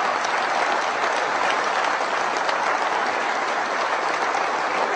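A large crowd applauding: many hands clapping at once in a dense, steady patter with no let-up.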